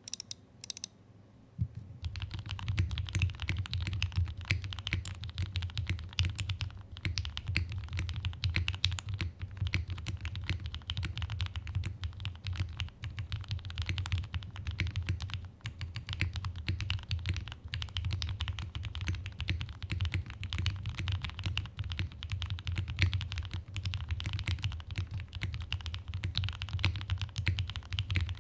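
Fast, continuous typing on a Qwertykeys Neo75 Cu custom mechanical keyboard with lubed Gateron Milky Yellow linear switches. It starts with a few separate keystrokes and becomes a dense run of key clicks about two seconds in.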